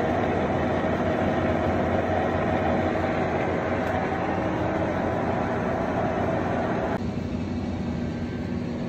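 1943 American Pacemaker 20x48 geared-head engine lathe running, a steady mechanical whine of gears and motor. About seven seconds in the higher part of the sound suddenly drops away, leaving a lower steady hum.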